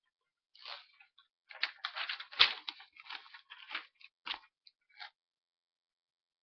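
Spiral-bound paper pad rustling and crinkling in irregular bursts as it is handled and lifted up close to the microphone, with a sharp knock about two and a half seconds in.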